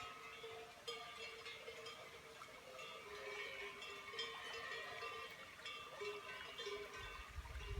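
Several cowbells clanking irregularly, ringing at different pitches. A low rumble comes in near the end.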